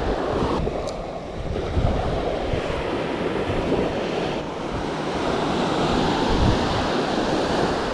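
Small surf waves washing onto a sandy beach, with wind buffeting the microphone in a steady, gusty rush.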